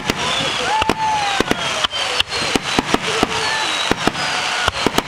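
Aerial fireworks bursting, many sharp bangs and cracks in quick, irregular succession.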